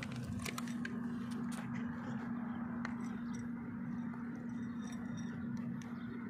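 Cat crunching dry kibble from a plate, a few scattered crunches over a steady low hum.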